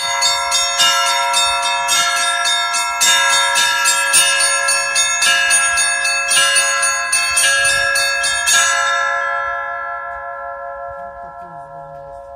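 Russian Orthodox church bells rung by hand in the Russian style: several bells struck in quick succession, several strikes a second, for about nine seconds. The strikes then stop and the bells ring on, fading.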